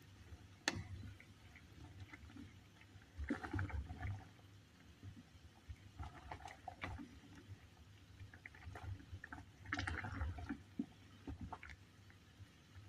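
Pan of water with fruit, ginger, cloves and mint simmering: irregular bubbling and gurgling in a few bursts, with a sharp click about a second in.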